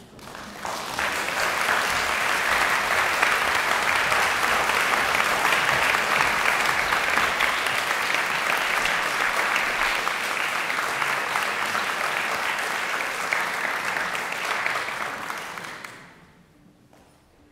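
Audience applauding, a dense steady patter of many hands clapping that builds up over the first couple of seconds and dies away near the end.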